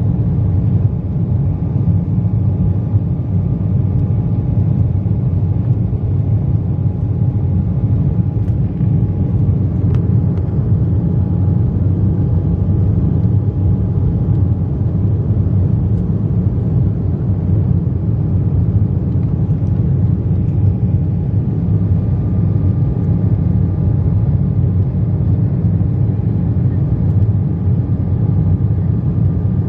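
Cabin noise of an Embraer 190 climbing after take-off: the steady low rumble of its GE CF34-10E turbofans and the airflow, heard from a window seat over the wing. A faint higher steady hum joins about two-thirds of the way through.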